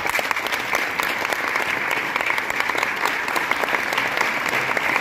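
Theatre audience applauding, with the cast on stage joining in: dense, steady clapping of many hands.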